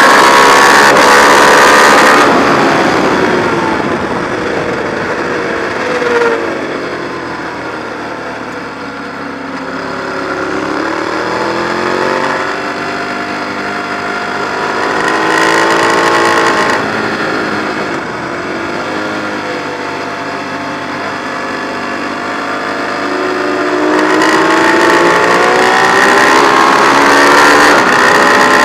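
Ducati 1098's L-twin engine at speed, heard onboard: held high and loud for the first two seconds, then the throttle closes and the pitch falls, with a short burst about six seconds in. It pulls up through rising revs twice more, falling away between them, and is loudest near the end.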